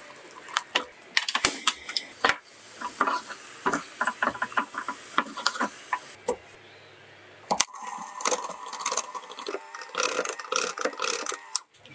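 A spatula stirring and scraping a thick flour-and-butter dough in an aluminium saucepan, with a quick, irregular run of knocks and scrapes. About eight seconds in this gives way to an electric hand mixer beating batter in a glass bowl: a steady motor hum with the beaters rattling against the bowl.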